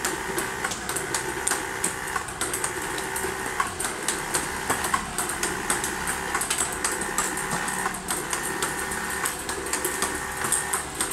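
Table tennis robot's motors whirring steadily as it fires 40 mm ping-pong balls at the second of its six ball-speed settings, with a quick run of sharp clicks from the balls launching and bouncing on the table.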